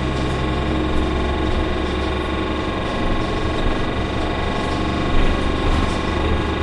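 Orion VII NG CNG transit bus with a Cummins ISL-G natural-gas engine and Allison B-400R transmission running at a steady pace, heard from inside the cabin: a steady low drone with a layer of constant whine.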